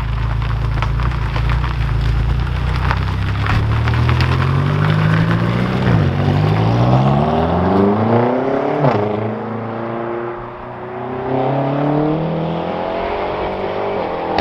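BMW M5 Competition's twin-turbo V8 accelerating hard, its pitch climbing and then dropping sharply at upshifts about six and nine seconds in, then holding steadier at speed.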